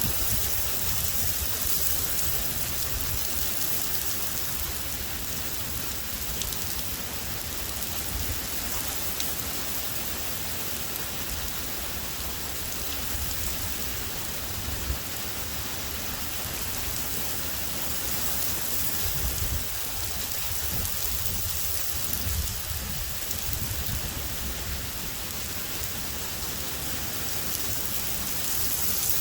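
Heavy rain falling steadily during a severe thunderstorm, with a low rumble that swells near the start and again a little past halfway.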